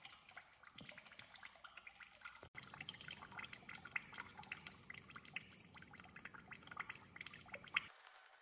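Final drive oil draining from a dozer's final drive housing in a thin stream into a tub of drained oil: faint splashing with a quick, irregular ticking of drips.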